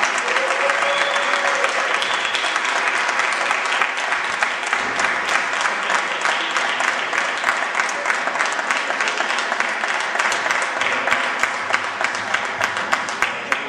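Audience applauding at the end of a storytelling performance, with a few voices mixed in. Near the end the clapping thins to separate claps and then stops.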